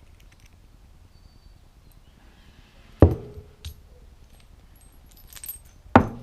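Small metal parts being handled: a few sharp clinks and knocks, each with a brief ring, about halfway in and near the end, with a light rattle between.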